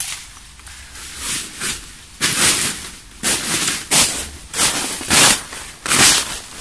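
Rambutan tree branches and leaves rustling and shaking in a run of irregular bursts as fruit clusters are pulled and handled among the foliage, louder from about two seconds in.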